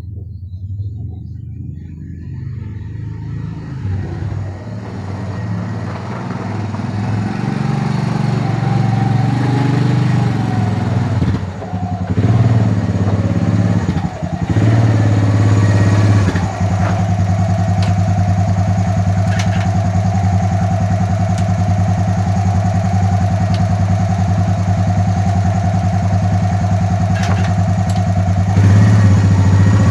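Honda Recon ES 250 ATV's single-cylinder four-stroke engine running. It holds a steady idle from about halfway through, with a couple of brief dips in speed before that, and gets a little louder near the end.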